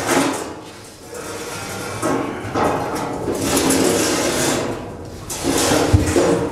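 Scraping and rubbing of the curved panels of a Puxin biogas digester mould as they are handled and fitted together, with a short knock near the end.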